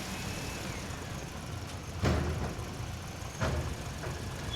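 A steady low engine-like hum, broken by two sharp knocks about a second and a half apart, the first the louder.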